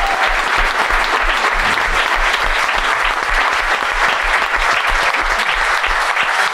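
Live audience applauding loudly and steadily.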